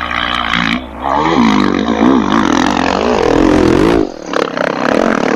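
Off-road vehicle engine revving hard, its pitch swinging up and down as the throttle is worked, with brief dips about a second in and again near four seconds.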